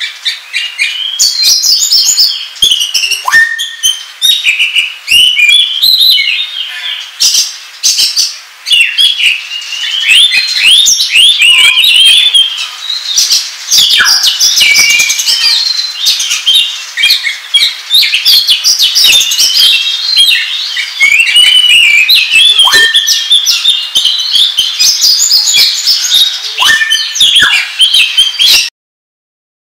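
Oriental magpie-robin singing a fast, unbroken run of varied chirps, whistles and chatter: the agitated full 'ngobra' song used as a lure call. It stops abruptly near the end.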